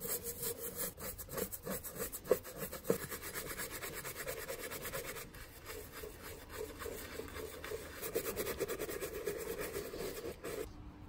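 Bristle paintbrush scrubbing rusty blowtorch parts in a tray of liquid, a rapid run of rubbing strokes that stops near the end.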